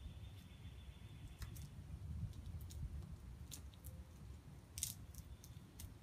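Duct tape being snipped with small scissors and peeled off a snake: quiet, scattered small clicks and crinkles.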